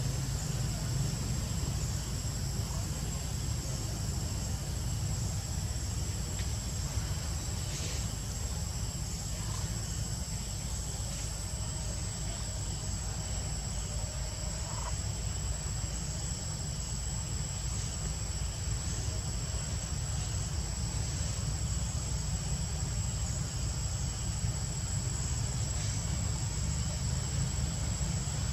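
Insects buzzing in one steady high-pitched tone over a continuous low rumble, with a few faint clicks.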